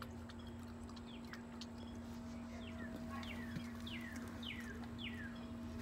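Australian Shepherd puppy whimpering: a run of about six short, high cries that each fall steeply in pitch, coming about two a second in the second half. A steady low hum sits underneath.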